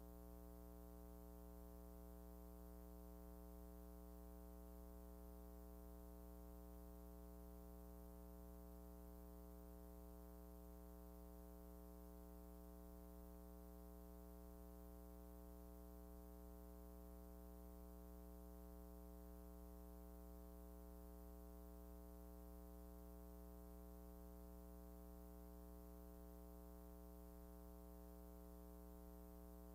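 Near silence with a faint, steady, unchanging hum.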